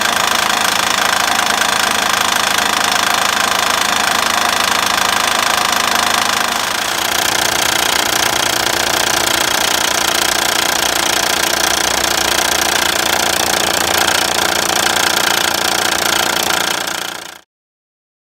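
2006 Honda Ridgeline's 3.5-litre V6 running with a knocking noise that comes from a failing timing belt tensioner, not the engine's bottom end. The sound changes in tone about seven seconds in and cuts off abruptly near the end.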